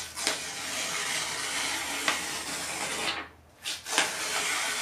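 A sheet of paper being crumpled and crinkled in the hands: a dense, crackly rustle that stops briefly about three seconds in, then starts again.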